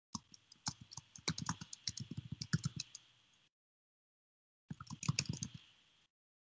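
Typing on a computer keyboard: a quick run of key clicks for about three seconds, a short pause, then another brief run of keystrokes.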